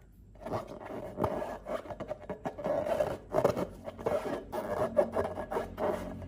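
Slime being mixed and worked by hand: irregular scraping, rubbing and crackling that starts about half a second in.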